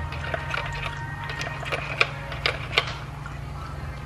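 Dog licking at the metal spout of a pet water bottle: a quick, irregular run of small clicks that stops about three seconds in, over a steady low hum.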